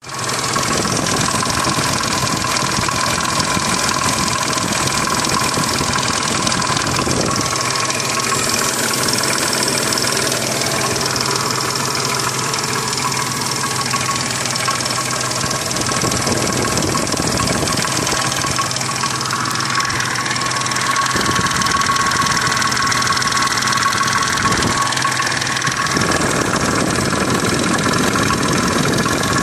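Triumph Stag's 3.0-litre V8 engine running steadily, with a steady high tone over the engine note and a few shifts in its sound. The noise is one that the owner suspects comes from the timing chains or the jackshaft.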